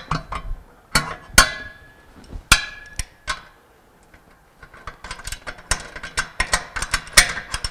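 Socket ratchet and wrench on a steel nut and bolt of a pump's sheet-metal coupler guard bracket as the nut is tightened: a few separate metallic clinks that ring briefly, then a quick run of clicks from about five seconds in.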